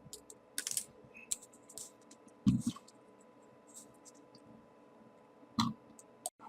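Small folded paper pieces being pushed into a 3D origami model: scattered light paper rustles and clicks, with three louder ones.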